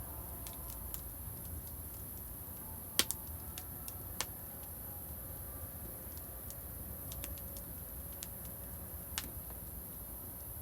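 Wood fire crackling: scattered sharp pops and snaps over a steady low rumble, the loudest pop about three seconds in.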